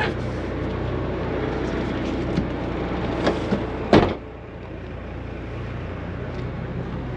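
Heavy truck engine running steadily, with a few sharp clicks and one loud clunk about four seconds in, after which the sound drops quieter.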